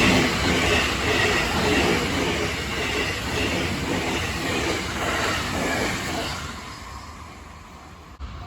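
A train running past, its wheels clattering over the rails in a repeating beat; the sound dies away over the last couple of seconds.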